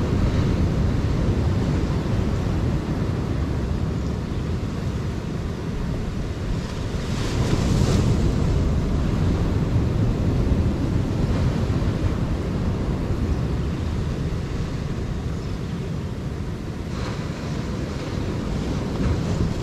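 Wind buffeting the microphone over surf washing against a rocky shore, with a wave breaking louder about seven seconds in and again near the end.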